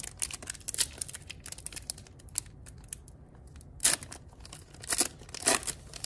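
A foil trading card pack being torn open by hand and its wrapper crinkling: a quick run of crackles, then several louder crinkles about four and five seconds in as the cards are pulled out.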